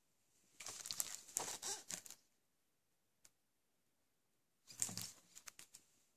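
Shrink-wrapped DVD case being handled, its plastic wrap crinkling in two bursts: about a second in as it is picked up, and again near five seconds as it is turned over and laid back down. A single small click falls between the two.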